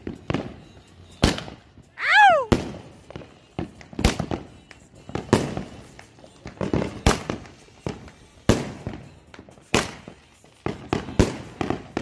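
Consumer fireworks going off: a series of sharp bangs, one about every second and a half, each with a short echo trailing after it.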